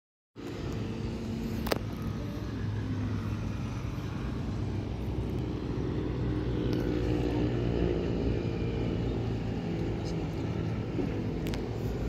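An engine running steadily, with voices in the background and a few sharp clicks, the loudest about two seconds in.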